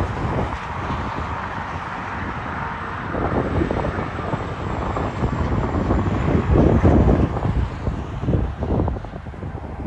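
Highway traffic noise as a semi truck hauling a tank trailer passes, loudest a little past the middle, mixed with gusty wind buffeting the microphone.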